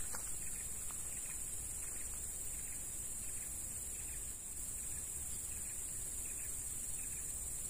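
Steady, high-pitched insect chorus that holds unbroken throughout, over a faint low rumble.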